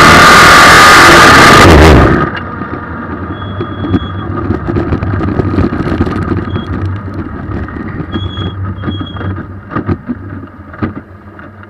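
Suzuki Hayabusa 1300 inline-four at full throttle in a race car, cutting out abruptly about two seconds in as the engine fails. The car then coasts and bounces across grass with rumbling, rattling and scattered knocks, a few short high-pitched beeps, and fades down near the end.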